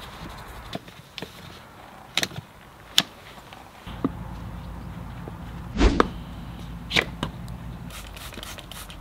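A series of irregular sharp knocks and clicks, about nine in all, the loudest about six seconds in, over a low steady hum that grows a little louder about four seconds in.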